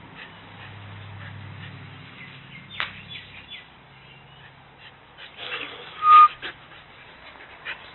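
Husky dogs playing, with a sharp click a little under three seconds in and one sudden short, high yip about six seconds in, the loudest sound.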